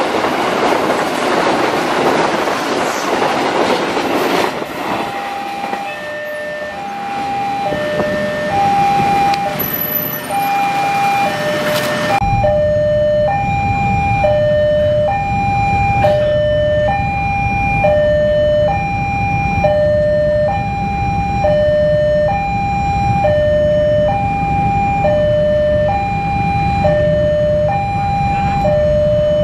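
Container freight train rolling past close by, a rush of wheel and wagon noise that dies away about four seconds in. A level-crossing alarm then sounds a repeating two-tone chime, alternating high and low about once a second. From about twelve seconds in, a low rumble from an approaching diesel locomotive runs under it.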